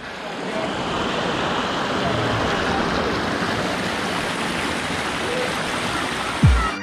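Steady rush of river water spilling over rocks in a small cascade and splashing into the pool below. About half a second before the end, a deep electronic bass-drum beat of dance music cuts in and is the loudest sound.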